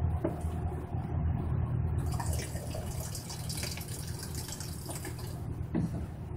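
Lye water running from a plastic valve at the base of an ash-filled bucket and trickling into a plastic jug, starting about two seconds in, over a steady low background rumble.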